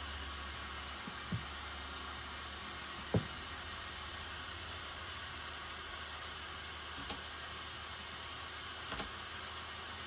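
Steady fan-like hiss with a low hum, broken by a few light clicks, the loudest about three seconds in.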